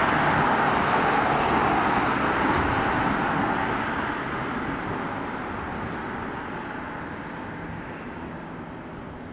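Volkswagen ambulance vans' engines and tyres on the road as a convoy drives past and away, loudest in the first second or two and then fading steadily, with no siren.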